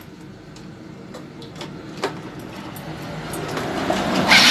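Yamaha Mio Soul scooter's single-cylinder four-stroke engine running just after starting, with the throttle opened near the end so it rises to a loud rev. It runs on freshly replaced intake and exhaust valves and valve seals, the fix for its hard starting.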